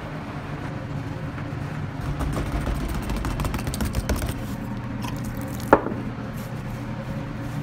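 A glass cognac bottle rolled and pressed over pizza dough on a wooden counter, with low rumbling, scraping and light knocks, over a steady low hum. About five and a half seconds in there is a single sharp knock of the glass bottle set down on the wooden counter.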